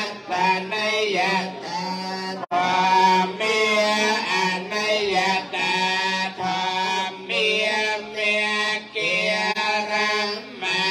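Buddhist chanting: voices chanting a melodic line over a steady held low note, with a brief sharp break in the sound about two and a half seconds in.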